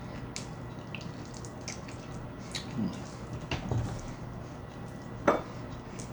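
Someone eating a barbecue-sauced chicken leg: small wet mouth clicks and smacks over a steady low hum, with one sharp click about five seconds in.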